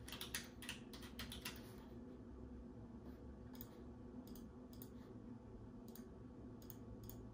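Typing on a computer keyboard: a quick run of about a dozen keystrokes at the start, then scattered single clicks.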